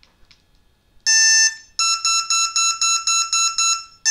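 Brushless electronic speed controller sounding its power-up calibration tones through the motor, after being powered with the throttle at full. It gives one steady beep about a second in, then a quick run of short beeps at a single pitch, about four a second.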